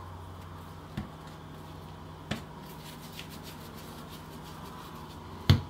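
Hands pressing and rubbing risen dough on a floured countertop, with three short thumps, the last and loudest near the end. A steady low hum runs underneath.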